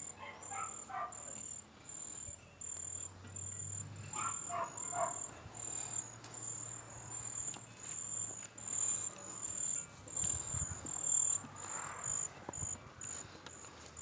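An insect, cricket-like, chirping in a steady high-pitched pulse a few times a second. Faint distant voices come in twice, and a few light knocks and handling noises sound near the end.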